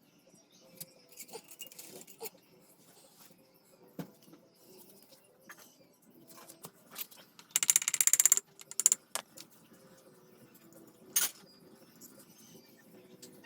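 Metal tools and small engine parts clinking and knocking as they are handled. Just past the middle comes a loud, rapid run of clicks lasting about a second.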